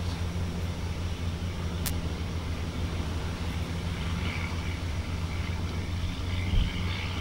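Farm tractor's diesel engine running steadily under load as it pulls a full trailer of chopped maize, a low even hum. A single sharp click comes about two seconds in and a low thump near the end.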